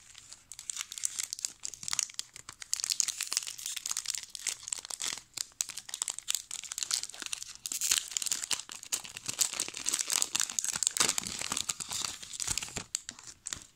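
Foil wrapper of a Pokémon TCG booster pack crinkling and tearing as it is torn open and handled, a dense crackle that stops near the end.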